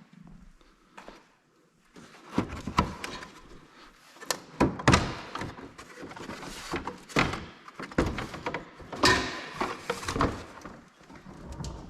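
Irregular knocks, thunks and clatter of hand work on a car body, as panels and parts are pried at, handled and set down.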